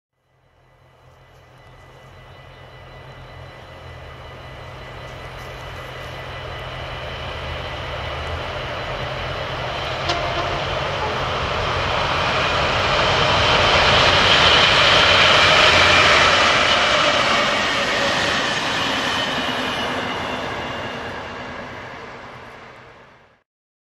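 Railpromo 1215, an NS 1200-class electric locomotive, passes with its train of coaches. The rumble of the train and the wheels on the rails grows steadily as it approaches, is loudest about two-thirds of the way through, then fades as it draws away. The sound cuts off abruptly near the end.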